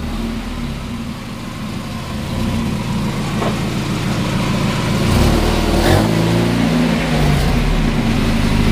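1993 Mazda Miata's 1.6-litre four-cylinder engine running as the car drives in at low speed, growing louder as it comes close. The engine note rises and falls briefly about six seconds in, then settles to a steady idle near the end.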